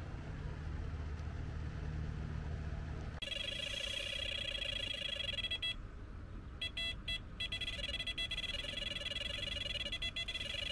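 Electronic carp bite alarm sounding a run of rapid, continuous beeps from about three seconds in, with a few short breaks: a fish has taken the bait and is pulling line. Before it, only a low steady hum.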